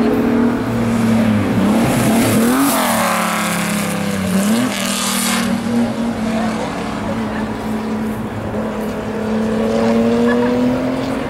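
Maserati 250F Grand Prix car's straight-six engine at high revs, its pitch dipping and rising sharply about two seconds in as it changes gear while passing close by, then holding a steady high note as it pulls away.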